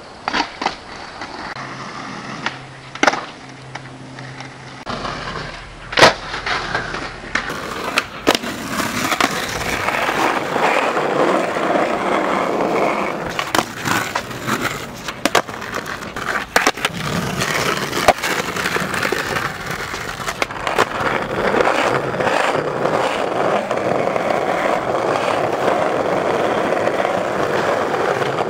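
Skateboard wheels rolling over concrete and stone paving, with sharp clacks of boards popping and landing. A few separate clacks come in the first part, the loudest about six seconds in, then a steady rolling noise with repeated clacks runs through the rest.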